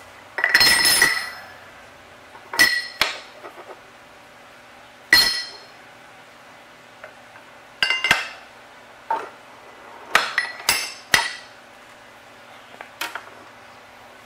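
Half-inch aluminium plate and metal spacer blocks being set down and positioned in a horizontal bandsaw's vise: a series of sharp metallic clinks and clanks, some ringing briefly. A longer clatter comes about half a second in, then roughly ten more separate knocks.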